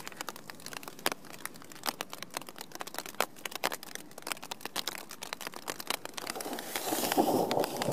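Raindrops striking a tent's fabric in dense, irregular taps during a mountain storm. A louder rushing sound swells in over the last second or two.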